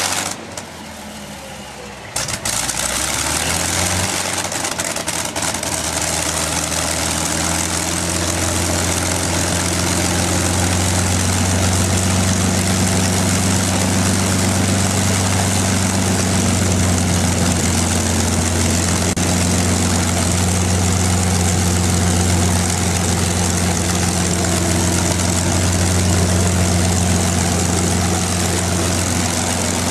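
P-51D Mustang's Packard Merlin V-12 engine running on the ground with the propeller turning, just after startup. It picks up and rises in pitch about two to four seconds in, then runs steadily at a low idle.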